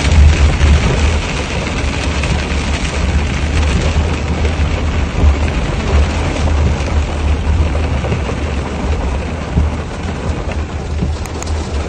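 Heavy rain pelting a car's windshield and roof, heard from inside the car as a dense, steady hiss over a loud low rumble.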